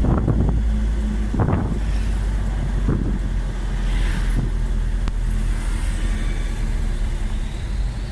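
A motor vehicle's engine running steadily, with short swells of rushing noise about a second and a half apart early on.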